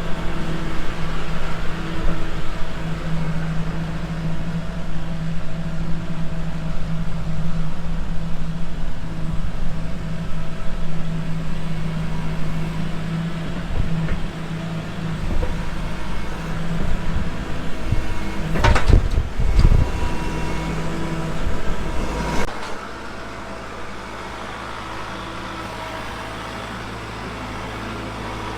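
An engine running steadily with a deep hum. A few knocks come about two-thirds of the way in, and soon after the sound drops suddenly to a quieter, steady lower hum.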